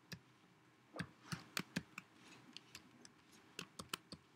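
Typing on a computer keyboard: a run of faint, irregular key clicks, some in quick clusters.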